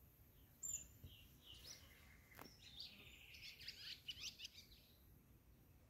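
Faint small-bird chirping: a sharp high chirp under a second in, then a quick run of short, high twittering notes through the middle.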